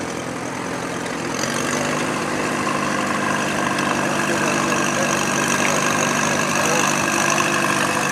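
Allis-Chalmers Model G tractor's small rear-mounted four-cylinder gasoline engine running steadily at low speed as the tractor drives past, growing louder about a second and a half in as it comes closer.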